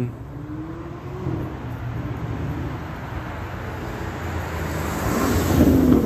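Road traffic: a steady rumble of cars going by, with one vehicle passing close and growing louder near the end.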